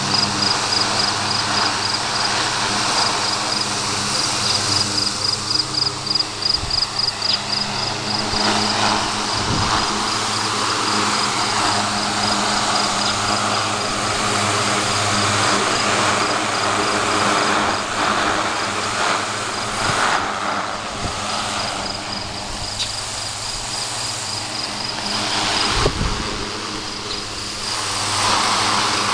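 Emerson 75048 16-inch steel-blade DC fan running steadily on AC through a bridge rectifier: a steady motor hum under the rush of air from the blades. An insect chirps in a fast, even pulse at a high pitch, most clearly in the first half.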